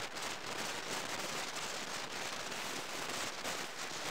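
Water running steadily and splashing onto a carp and the cleaning table as the fish is rinsed.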